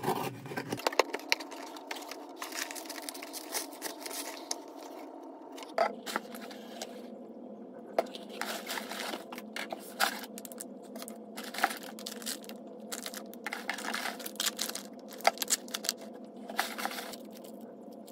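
A box cutter slits the packing tape on a cardboard shipping box. The cardboard flaps are then pulled open and packaging crinkles as items are lifted out, in an uneven run of scrapes, tears and light taps.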